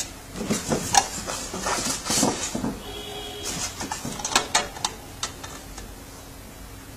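Hard plastic blocks of a stackable Tetris LED lamp clicking and knocking as they are lifted off and fitted together by hand; a run of sharp clicks that dies away about five seconds in.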